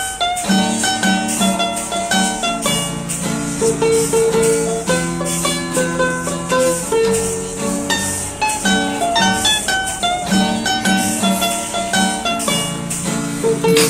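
Instrumental background music: a melody of short notes changing every fraction of a second.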